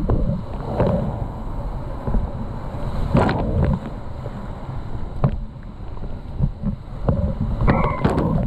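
Rushing whitewater of a river in flood, with wind buffeting the microphone and irregular splashes and knocks of paddle strokes hitting the water and the kayak, loudest about three seconds in and near the end.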